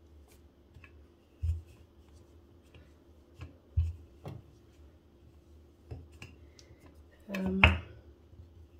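Light knocks and soft rubbing as hands and a wooden rolling pin handle rolled chapati dough on a granite countertop, a few separate taps a second or so apart. Near the end a short voice sound is the loudest thing.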